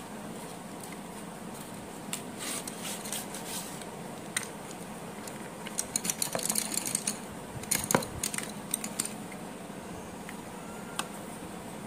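Wooden pencils clicking and clacking against one another as a handful is handled and sorted, in two spells of light clatter, the sharpest clack about eight seconds in, over a steady faint hiss.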